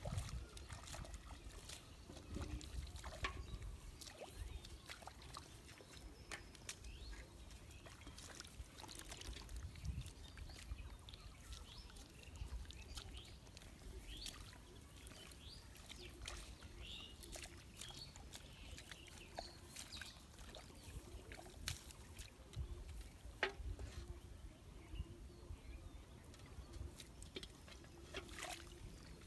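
Small splashes, trickles and squelches as hands grope through the shallow muddy water of a rice field drain, in scattered irregular bursts over a faint low rumble.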